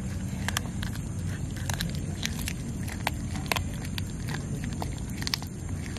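Cat chewing raw fish: irregular crunchy clicks, about a dozen, over a steady low background rumble.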